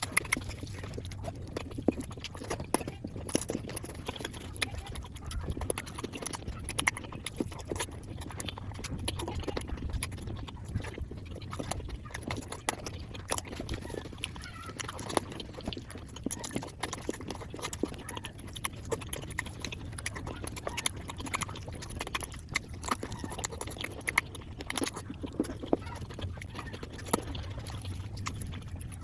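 Close-miked eating sounds of flatbread and curry, sped up to five times normal speed: chewing, mouth clicks and smacks crowd into a fast, irregular patter of sharp ticks.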